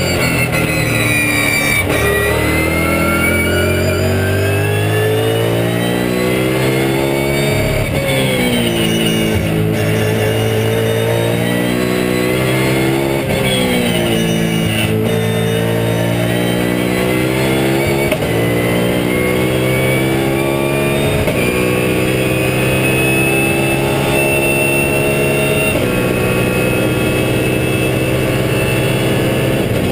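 BMW Z4 GT3 race car's V8 engine at full race pace, heard from inside the cockpit. Its pitch falls under braking, then climbs through the gears with sudden drops at each upshift.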